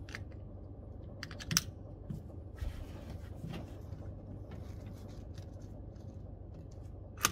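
Handling noise from a CZ 457 .22 LR bolt-action rifle being worked and settled into: a few sharp metallic clicks about a second and a half in, lighter ticks and rubbing after that, and another sharp click near the end.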